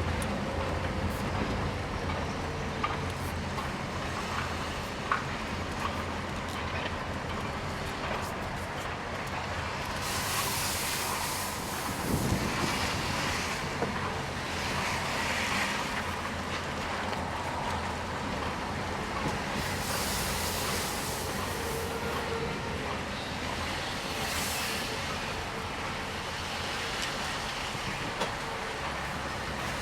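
A car running: a steady low engine hum with road noise, and a rushing hiss that swells up and fades a few times.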